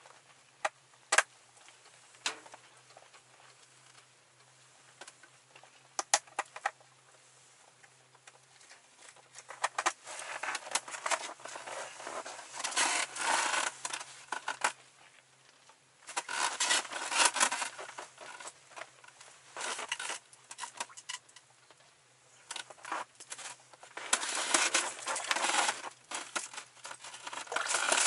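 A few sharp clicks of a plastic lure box being handled, then repeated stretches of rustling and crunching from a person's padded clothing and boots as he gets up and crouches on the snow floor of an ice-fishing tent.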